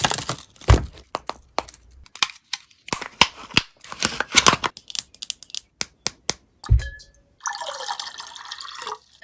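Irregular sharp taps and clicks, then water running for about a second and a half near the end.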